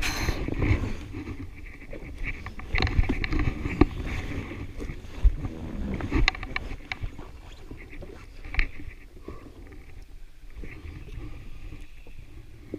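Wind and sea noise around a jet ski on open water, with scattered irregular knocks and clicks from handling fishing gear on the craft.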